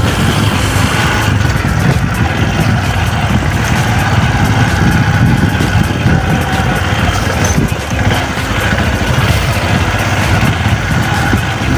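Trail motorcycle engine running steadily at low speed as the bike is ridden along a muddy dirt track, with a brief dip in loudness about eight seconds in.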